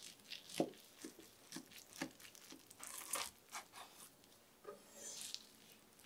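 Faint kitchen handling sounds during food preparation: a scatter of light clicks and knocks, then a short crinkly rustle about five seconds in.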